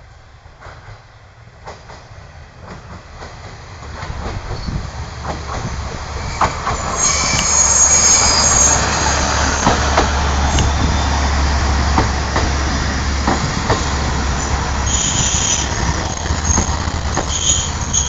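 A JR diesel railcar arriving at a small station, growing louder as it approaches and passes close by. Its low engine hum is joined by the clack of wheels over rail joints and, from about seven seconds in, high-pitched squealing from the wheels as it slows.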